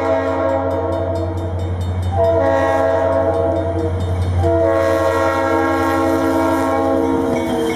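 Approaching NECR freight train's diesel locomotive sounding its air horn in three long blasts, with short breaks about two and four and a half seconds in. The horn sounds several notes at once, over the low rumble of the diesel engines.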